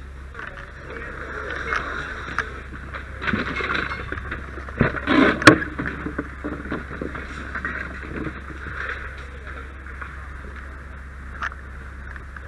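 Water from a fire hose hissing onto charred, steaming shed debris during overhaul, with a few sharp knocks and clatters as burned wood is moved. The loudest knock comes about five and a half seconds in, with a steady low hum underneath.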